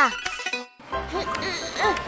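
Playful background music with short bouncy notes, coming in about a second in after a brief pause. A voice trails off at the very start.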